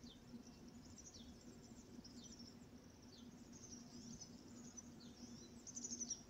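Faint wild birds chirping: short, quick falling notes that come about once a second, over a faint steady low hum.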